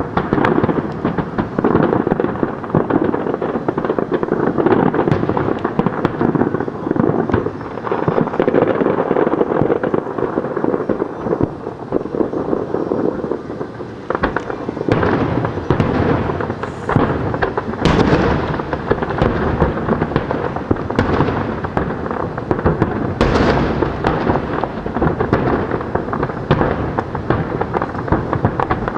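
Display fireworks: aerial shells bursting in rapid succession, their bangs overlapping into a continuous rumble, with heavier booms from about halfway through.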